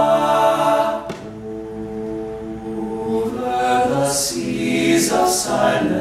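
Men's a cappella group singing sustained harmony chords with no instruments. The full chord drops away about a second in to a softer held chord, then swells again, with a few short hissed consonants near the end.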